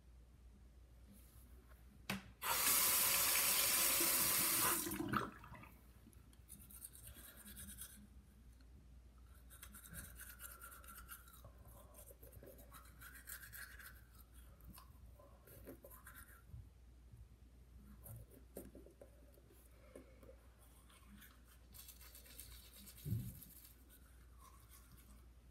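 Water from a tap runs in a steady hiss for about two and a half seconds, then stops. Afterwards a manual toothbrush scrubs teeth in short, quieter spells of scratchy brushing.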